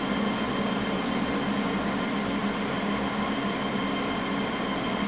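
Electric fan running with a steady hum, a few constant tones over an even rush of air.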